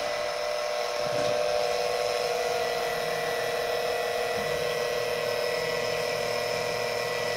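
Small 12 V electric fluid transfer pump running steadily with a constant high motor whine, pumping CVT fluid. A lower hum joins about a second in.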